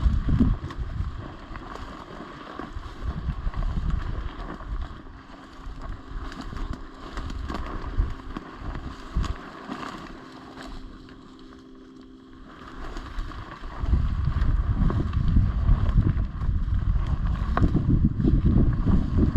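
Wind buffeting the microphone in gusts, a low rumble that eases off mid-way and comes back stronger for the last few seconds. A faint steady hum can be heard while the wind is low.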